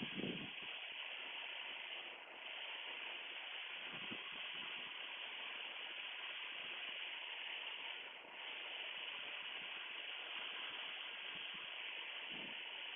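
Steady cockpit noise of a Piper Comanche 250 in descent: engine, propeller and rushing air as an even hiss, dipping briefly about two and about eight seconds in.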